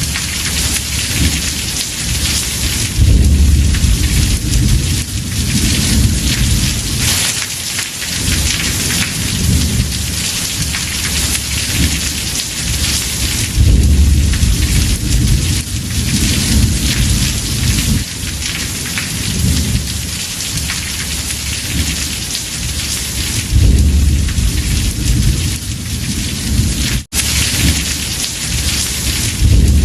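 Heavy rain on a house roof with thunder rumbling, swelling loudest about three, thirteen and twenty-four seconds in and again at the very end. Near the end the sound cuts out for an instant.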